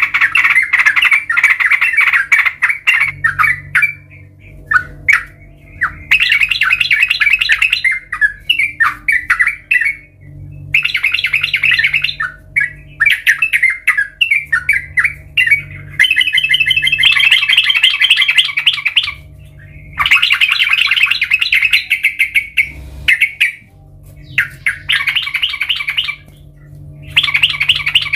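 Yellow-vented bulbul (trucukan) singing loud bursts of rapid, bubbly chattering notes, each lasting a second or a few seconds, with short pauses between.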